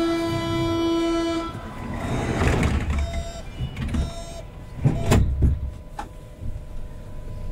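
Berlin U-Bahn H-series train door-closing sequence: a steady electronic warning tone that stops about a second and a half in, a shorter higher tone a little later, then the sliding doors shutting with sharp thuds about five seconds in and again a second after.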